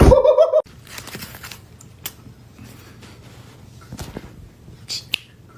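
A cat gives one short meow at the start, followed by faint scattered taps and rustles.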